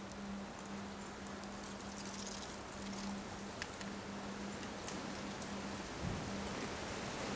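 Wind during a windstorm: a steady rush with leaves rustling and scattered light ticks of debris. A steady low hum runs underneath and breaks off briefly a few times.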